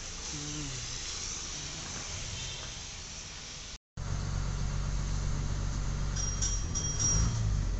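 Bus interior: quiet cabin noise, then after an abrupt cut about halfway through, the bus engine's louder steady low drone as it runs.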